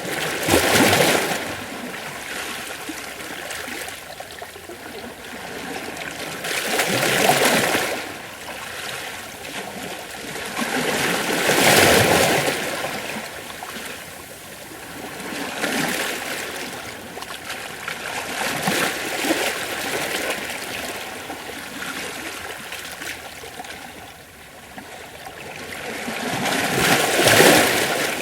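Gentle ocean waves washing against rocks, splashing and draining back. The wash rises into a louder surge every four to six seconds, the biggest about a second in, at about seven and twelve seconds, and near the end.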